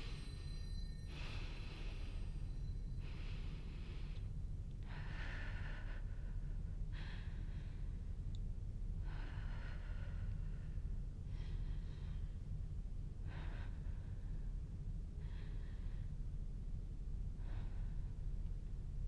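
A person breathing heavily: slow, audible breaths about every two seconds, growing fainter toward the end, over a steady low rumble.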